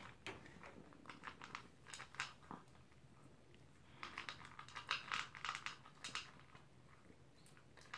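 Toy poodle eating its dinner from a plastic bowl: faint quick crunches and clicks, in one spell about a second in and another from about four to six seconds in.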